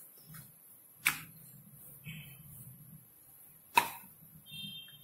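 Two sharp knocks, one about a second in and one near the end, as roti dough is rolled and handled on a marble rolling board, over a faint low hum.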